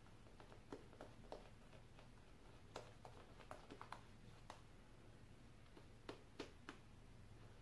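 Near silence: room tone with a steady low hum and a dozen or so faint, scattered clicks.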